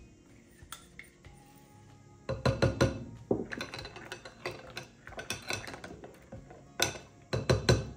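A utensil stirring liquid in a glass mixing bowl, clinking and knocking against the glass in quick, uneven strokes that start about two seconds in, with a few louder knocks near the end.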